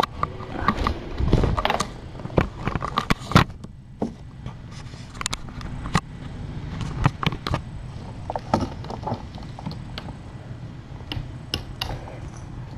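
Handling noise from a webcam being moved: a dense run of knocks and rubbing with a low rumble in the first few seconds, then scattered clicks and light scrapes.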